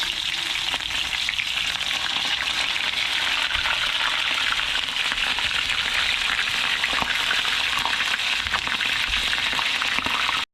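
Whole cornstarch-coated white perch deep-frying in hot peanut oil: a steady, dense sizzle and crackle of the oil. It cuts off abruptly at the very end.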